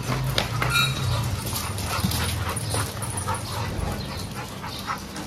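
Dogs whimpering and yipping, over many short clicks of claws and footsteps on the stairs.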